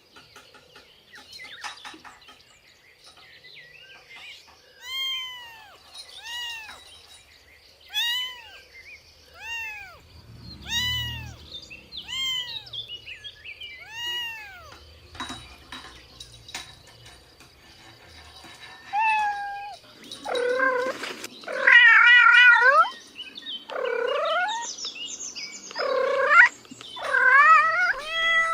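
Cats meowing. First come about seven short, high mews, one every second and a half. From about two-thirds of the way through come louder, longer, wavering meows.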